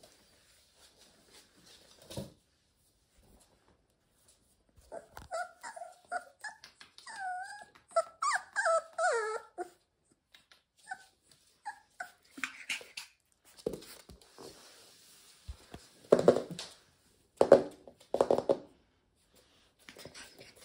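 Eurasier puppies whimpering and yipping in play: a run of high, wavering whines from about five seconds in, then three short, louder, lower calls near the end.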